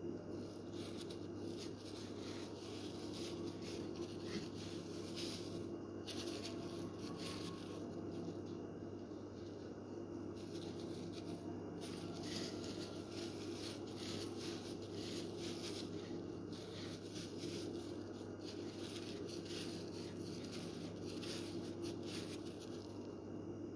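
Eating and food-handling noises: crisp fried patties crackling as they are handled with a plastic-gloved hand and chewed, with rustling, coming in short spells over a steady low hum.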